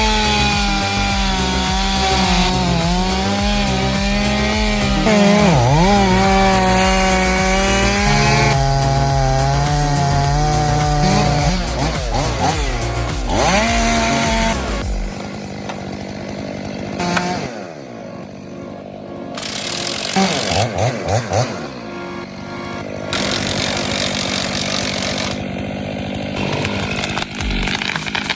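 Chainsaw running at high revs and cutting wood, its pitch dipping and recovering repeatedly as the chain bogs under load, over background music. About halfway through it drops back, with a few short revs later on.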